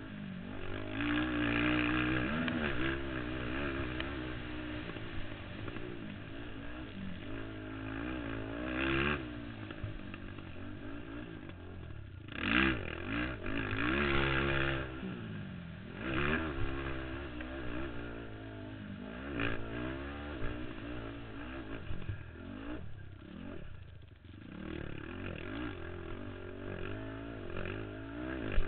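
Race ATV's engine heard from on board, its revs rising and falling over and over as the throttle is opened and closed around the track. Several short louder rushes of noise break through along the way.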